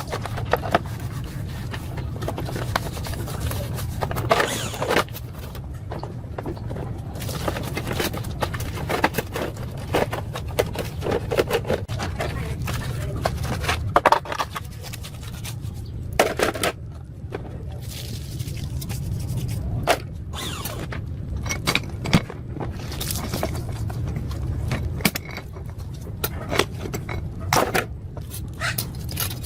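Hand work on motorbike parts: irregular scraping strokes with scattered sharp clicks and knocks, over a steady low hum.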